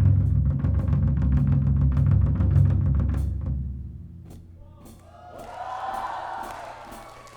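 Live rock band in an instrumental passage: a drum kit playing fast, even hits over a heavy, sustained bass. About four seconds in, the bass and drumming fade away, leaving scattered drum hits and a quieter wavering higher tone.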